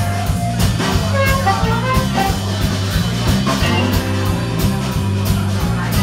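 Live blues band playing an instrumental stretch with no vocals: a repeating bass line, drum kit and electric guitar.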